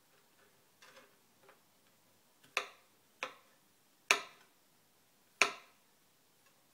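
Kitchen knife dicing garlic cloves on a plastic cutting board: a few faint cuts, then four sharp knocks of the blade on the board, unevenly spaced about a second apart.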